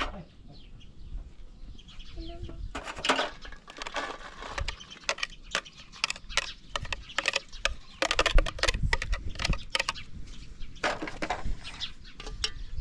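Irregular knocks, clinks and scraping from a glass jar and a steel pot being handled as a grainy pickling mixture is tipped out and worked by hand, with short rustling stretches between.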